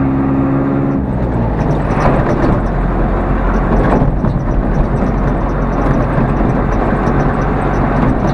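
Mercedes-Benz 608 D truck's diesel engine running under way, heard from inside the cab with steady road noise. The engine note changes about a second in.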